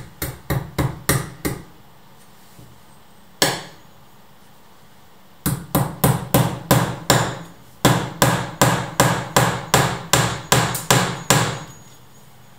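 Small hammer striking a nail at the hinge edge of a door: a quick run of about seven taps, a single blow a couple of seconds later, then a long steady run of about twenty blows at roughly three a second.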